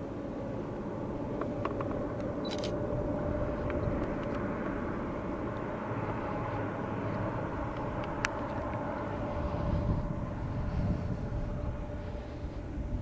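Distant diesel train running, a steady drone and low rumble with a held hum, heard across open country. A few sharp clicks stand out over it.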